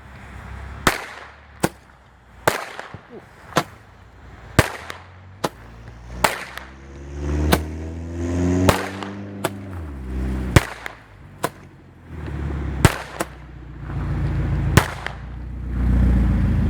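A Blue Thunder roman candle firing its shots, each ending in a sharp loud report, about fifteen of them roughly a second apart.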